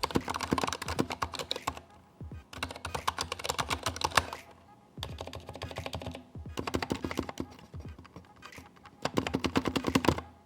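Typing on a Ducky x Varmilo Miya Pro 65% mechanical keyboard with Cherry MX Silent Red switches and dye-sub PBT keycaps: fast runs of keystrokes with a deep bottoming-out sound. The runs break off in short pauses about two seconds in, about four and a half seconds in, and near the end.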